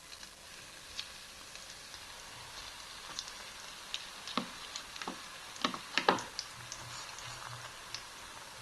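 Breaded chicken frying in hot oil: a steady sizzle with scattered sharp pops and clicks.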